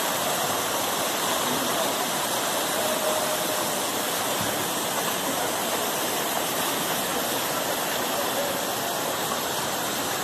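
River rapids rushing over rocks, a steady, unbroken sound of fast water.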